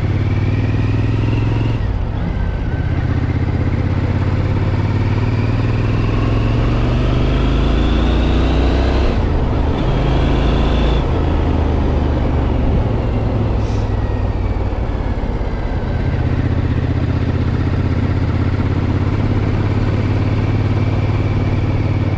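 Triumph Scrambler 900's parallel-twin engine running under way on the road, its note rising as it accelerates and dropping at gear changes, about nine and eleven seconds in.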